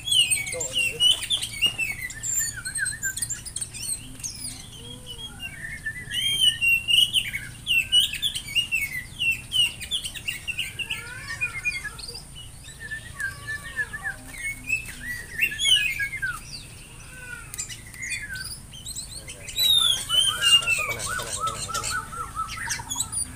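Birds calling with rapid, varied whistled chirps and short slurred notes in bursts, louder near the start and again near the end.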